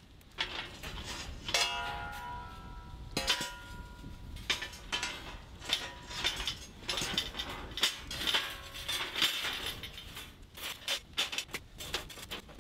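Heavy sheet-steel fire pit panels clanking and scraping as a side panel is lifted and worked into its slots, with many small knocks and clinks. Twice, about one and a half and three seconds in, a knock leaves the steel ringing briefly.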